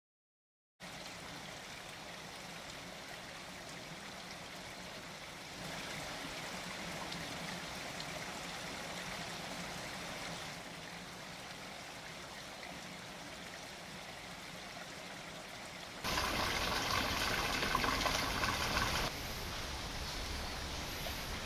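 Steady rush of running water from a stream, stepping up and down in level a few times and loudest for about three seconds near the end.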